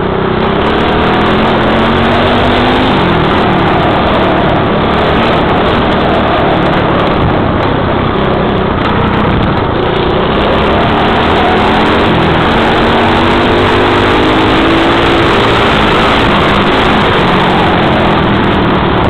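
Small dirt bike engine running hard while riding over a rough grass track, its pitch rising and falling over and over as the throttle is opened and closed.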